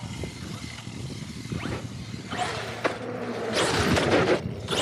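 ARRMA Outcast 8S electric monster truck driving past on asphalt: a rush of tyre and brushless-motor noise that builds from about halfway through, is loudest around four seconds in, then drops off sharply.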